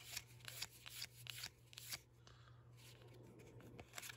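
Pokémon trading cards being flipped through by hand, each card sliding and flicking off the stack with a faint slap and rustle. A quick run of flicks comes in the first two seconds, then a pause, then a couple more near the end.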